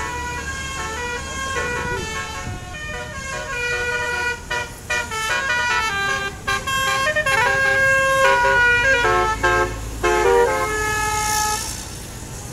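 Telolet bus horn, a multi-tone air horn set, playing a quick stepping melody of many short notes over the bus's engine running underneath. The horn stops just before the end.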